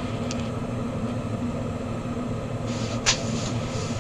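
Lampworking bench torch burning steadily over a low hum, with a faint tick just after the start and one sharp click about three seconds in as a knife works the hot glass.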